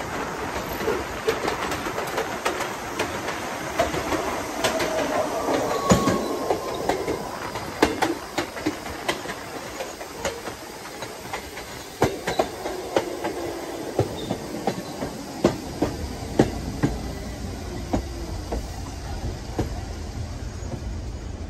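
New York City Subway 1 train (R62A cars) running on steel rails: wheels clicking over rail joints, with brief wheel squeals in the first half. The train slows, so the clicks come further apart and quieter. A low steady hum comes in over the last few seconds.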